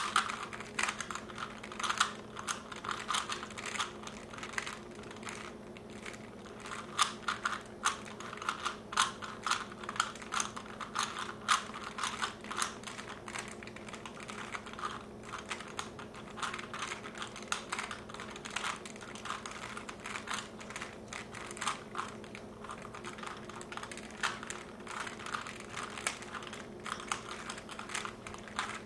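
3x3 Rubik's cubes being turned rapidly by hand, their plastic layers clicking and clacking in quick, irregular runs, with a faint steady hum underneath.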